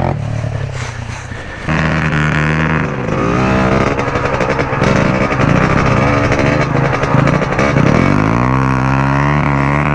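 Pitbike's small single-cylinder four-stroke engine under load, revving up and down over and over as it is ridden over rough ground, louder from about two seconds in, with the revs climbing near the end.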